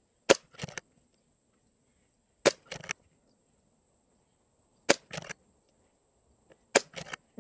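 Brocock Sniper XR Sahara PCP air rifle firing four shots about two and a half seconds apart. Each is a sharp crack followed a fraction of a second later by a quieter cluster of clicks.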